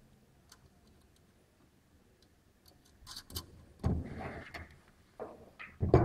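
Metal waveguide components being fitted together by hand, with flange screws turned and parts handled on a wooden table. A few faint clicks come first. From about three seconds in there is a run of clicks, knocks and scraping, with a heavier thud about a second later and another near the end.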